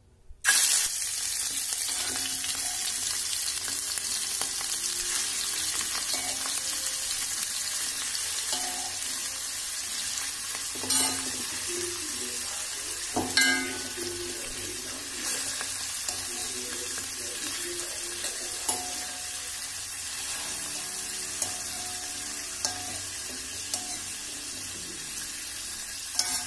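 Mutton kidney pieces frying in sesame oil in a steel kadai: a steady sizzle that starts suddenly about half a second in, with a few sharp clicks and pops around the middle.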